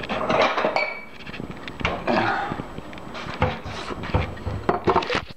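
Kitchen bowls clinking and knocking together as a bowl is taken out and set down, with one brief ringing clink about a second in.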